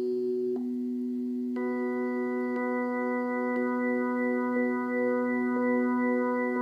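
Casio keyboard's synthesized electric organ tone holding one steady note, played from an Arduino's MIDI output. Its tone changes twice in the first two seconds, becoming fuller the second time, as the keyboard's organ voices are stepped through. A faint tick comes about once a second.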